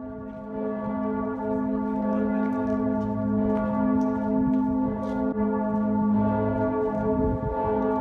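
Full peal of Cologne Cathedral's bells: many large church bells ringing at once, their tones blending into a continuous, overlapping ringing.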